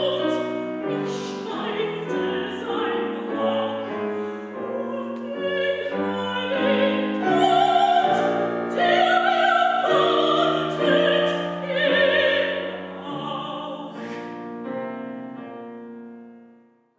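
Mezzo-soprano voice singing a classical art song with vibrato, accompanied by a grand piano. The music fades out near the end.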